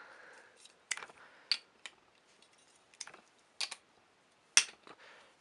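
Light clicks and knocks of plastic and wooden toy train pieces being handled and fitted onto toy flatbed trucks, about seven scattered clicks with the sharpest one near the end.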